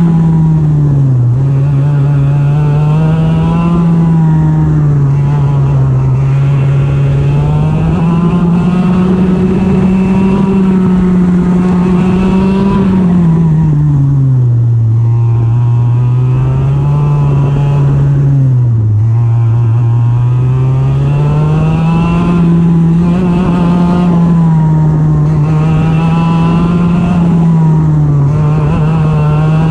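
IAME Leopard 125cc two-stroke TaG kart engine at full race running, heard from the driver's seat, its pitch climbing and falling continuously as the kart accelerates down the straights and lifts for corners. The revs drop lowest about halfway through and again about two-thirds through, for the slower turns, then climb back up.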